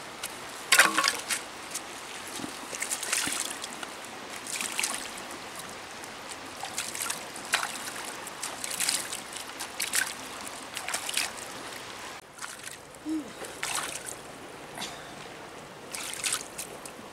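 Hands scooping and splashing water at the edge of a shallow river, a string of short splashes every second or two, the loudest about a second in, over the steady flow of the river.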